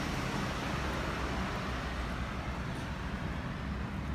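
Steady outdoor urban background noise: an even hiss over a low rumble, with no distinct event.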